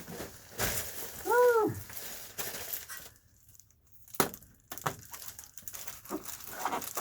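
Foil bubble insulation and tape crinkling and rustling as they are handled and pressed into place. There is a short squeak that rises and falls in pitch about a second and a half in, and a sharp tap about four seconds in.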